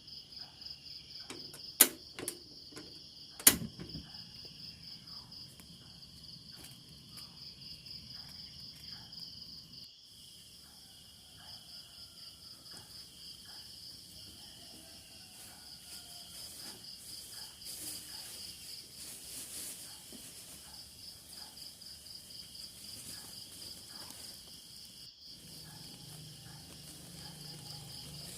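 Night insects, likely crickets, trilling steadily in a fast, even pulse. Two sharp clicks come about two and three and a half seconds in.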